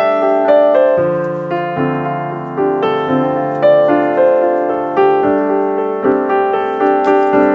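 Background piano music: a run of struck notes, each fading away, over held lower notes.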